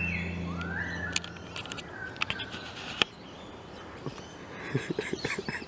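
Birds calling outdoors, with whistled notes that rise and then hold, over a low steady hum that stops about a second in. A few sharp clicks and knocks sound through it, with a cluster of soft knocks near the end.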